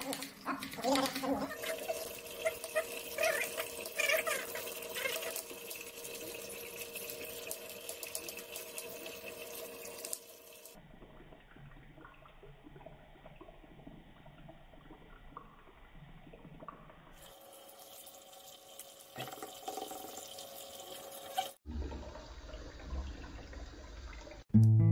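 Kitchen knife cutting vegetables on a plastic cutting board, with scattered sharp taps over a steady background hum. The sound changes abruptly several times where short clips are joined.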